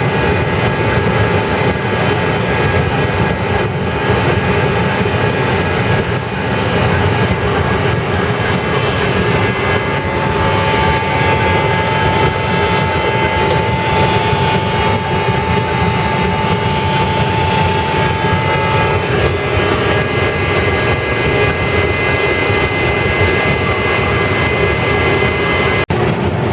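Potato unloading and sorting machinery (stinger, conveyor belts, rollers and sorting table) running steadily as one constant mechanical drone, with several steady whining tones. A thin higher whine comes in for several seconds in the middle.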